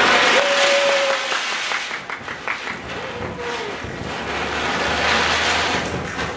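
Ground spinner firework (chakri) spinning on the floor, giving off a loud hissing rush of sparks with a little crackle. It is loudest at the start.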